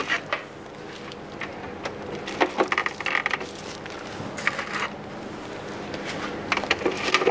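Plastic trays of an electric food dehydrator being lifted and stacked onto its base by hand: scattered plastic clicks and knocks, with a quick cluster of rattling clicks about three seconds in and more near the end.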